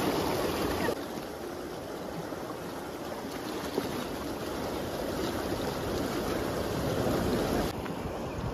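Fast-flowing stream water rushing, a steady noise that drops a little in level about a second in.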